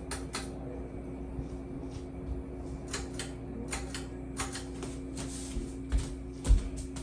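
Hampton Bay Gazebo II Plus ceiling fan running with a steady low motor hum, while scattered light clicks and knocks sound through it and a few dull thumps come near the end.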